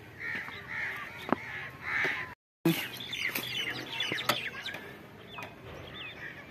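Outdoor birds calling: a run of repeated calls about twice a second, then, after a break, a busier mix of chirps and short whistled notes.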